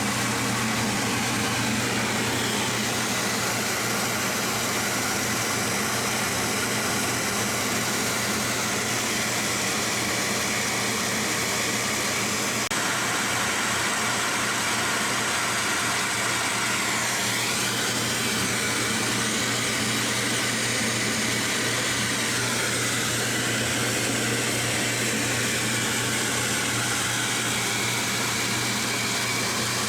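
Metal lathe running steadily during thread-cutting passes on a new steel riser shaft: a constant hum with an even hiss over it.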